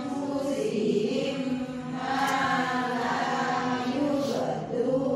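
Qur'an recitation chanted in a melodic tajwid style, with long drawn-out vowels whose pitch wavers up and down, and a short break about two seconds in.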